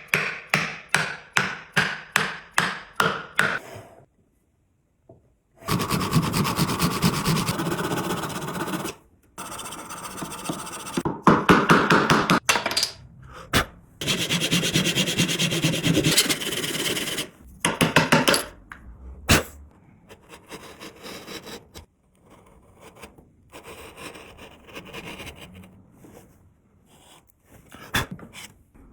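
Hand tools working wood. First comes a run of evenly spaced sharp taps, about three a second. Then come stretches of rasping or scraping on wood that start and stop abruptly, growing fainter and more broken in the last third.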